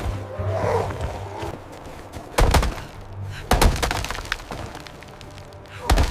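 Three loud cracking impacts, the first two about a second apart and the last about two seconds later, over a low, steady music drone.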